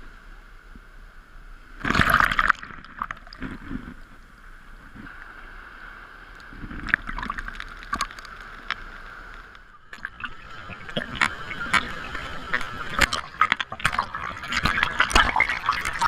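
Ocean surf washing and breaking, with crackling, fizzing foam; one loud surge about two seconds in, and the water grows busier and louder over the last few seconds.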